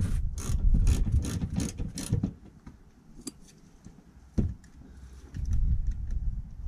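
Hand socket ratchet clicking in a quick run, about four clicks a second for two seconds, as a stiff bolt in the car's underbody is worked back and forth; then it stops, with a single knock about four and a half seconds in.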